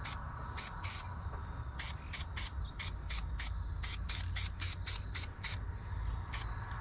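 Aerosol can of orange touch-up paint hissing in short, quick squirts, about three a second, with a couple of brief pauses.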